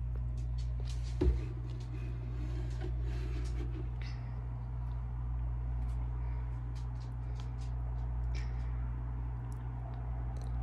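Drinking from a plastic water bottle over a steady low hum, with one sharp knock about a second in and scattered small clicks.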